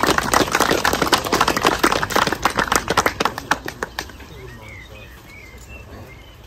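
A small group clapping, dying away about four seconds in, after which a bird chirps a few times.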